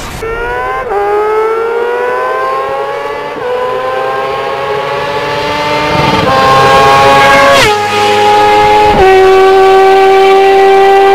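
Motorcycle engine revving hard as it accelerates through the gears: the pitch climbs and drops sharply at each of several upshifts, getting louder, then holds one steady high note for the last couple of seconds.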